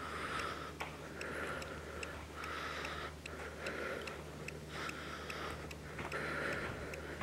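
EMF meter clicking steadily, about three ticks a second, while switched on to sweep for readings. Under it, a soft hiss comes and goes about once a second.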